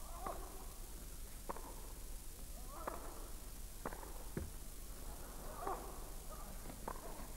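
Faint tennis rally: racket strikes and ball bounces on an indoor court, a sharp knock about every second.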